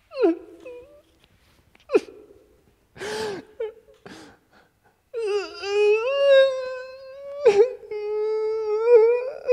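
A man crying. First come short sobbing gasps and sniffs, then from about five seconds in a long, high, wavering wail.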